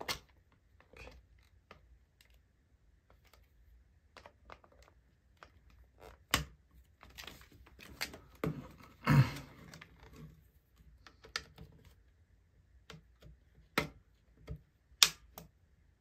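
Scattered clicks and knocks of a hair dryer's plastic housing being handled and worked apart by hand, with a few sharper knocks, the loudest about nine seconds in.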